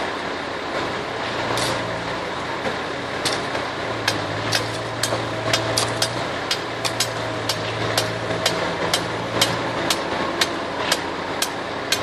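Liebherr 926 crawler excavator's diesel engine running under load as it digs and swings a bucket of earth, with heavy diesel machinery humming steadily. From about three seconds in until near the end, a quick, irregular series of sharp clicks and knocks sounds over the hum.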